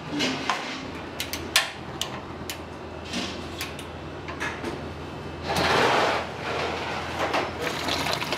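Kitchen clatter: scattered knocks and clinks of pans and utensils over a steady low hum, with a short loud rush of noise about six seconds in.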